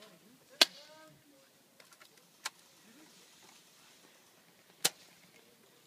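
Three sharp single pops about two seconds apart, the first the loudest: airsoft guns firing single shots.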